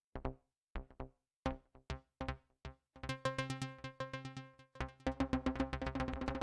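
Dave Smith Instruments Prophet 6 analog polyphonic synthesizer playing a short, plucky preset with no effects. For about three seconds the notes come one at a time and die away quickly. After that they turn into a fast, dense stream of repeated notes over a held pitched layer.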